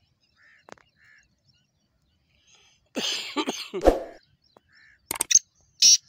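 Black francolin calling: a loud, harsh, grating call broken into several notes about three seconds in, followed by two short, sharp high notes near the end. Two faint small-bird chirps come in the first second.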